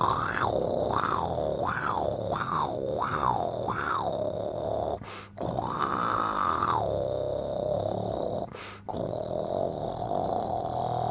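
A person snoring, a continuous rough throat sound. Its tone swells up and falls back about six times in the first four seconds, then holds steadier, with two brief breaks.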